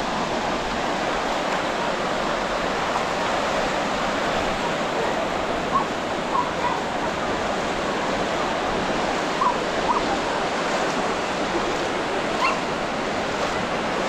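Steady wash of ocean surf breaking on a beach, with a dog barking a few short times in the second half.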